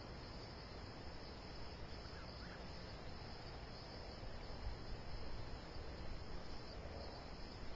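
Crickets chirring steadily and faintly over a low background hiss.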